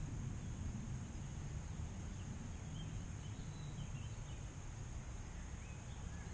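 Outdoor ambience: a low, uneven rumble with a few short bird chirps scattered through.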